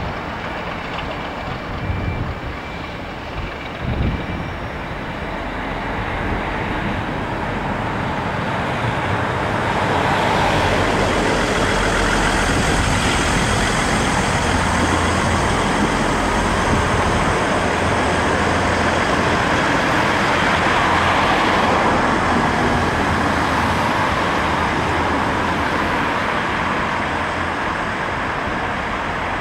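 Diesel trains passing close by: a pair of Class 37 locomotives with English Electric V12 engines hauling tank wagons, and a Class 158 diesel multiple unit. Engine and wheel noise build over several seconds, stay loud for about ten seconds, then ease off a little near the end.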